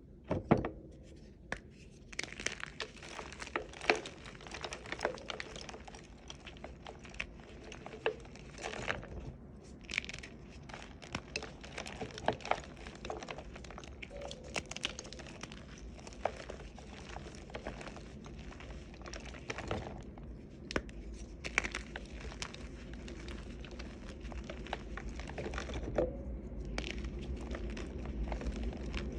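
Reformed chalk pieces, green with red glitter on top, being crushed and crumbled: a steady run of irregular crunches and sharp crackles, with louder cracks every few seconds.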